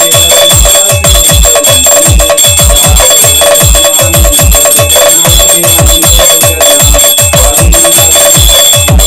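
Devotional song track with a fast, steady electronic bass-drum beat and ringing bell tones.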